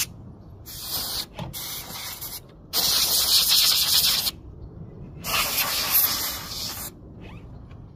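Can of compressed-air electronics duster hissing in four short blasts into a car's sunroof track and drain holes to blow out debris; the last two blasts are longer, about a second and a half each.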